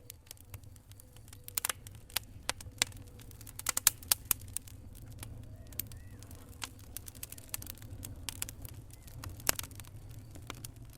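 Wood fire in a fireplace crackling, with irregular sharp pops over a low steady rumble of the flames; a cluster of loud pops comes about four seconds in and another loud one near the end.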